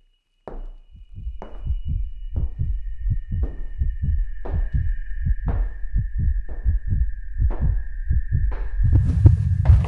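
Heartbeat sound effect, a low double thump about once a second, under a steady high-pitched tone. Near the end a loud low rumble with hiss swells in.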